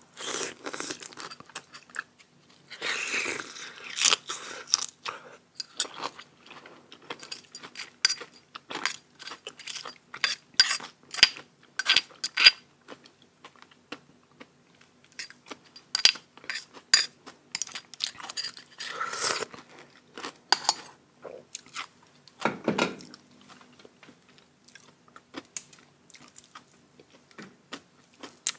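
Close-up eating sounds: a person chewing and crunching food, with many sharp mouth clicks and smacks at an irregular pace. There are denser, longer stretches of crunching about three seconds in and again around nineteen seconds.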